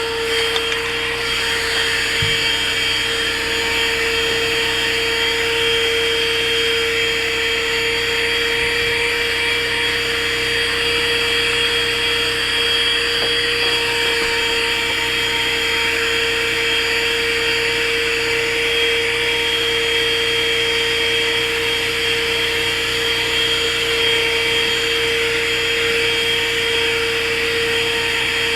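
HOTOR 12V corded car vacuum running continuously, a steady motor whine over the rush of suction air, being worked over the car's dog-hair-covered upholstery with the bare nozzle.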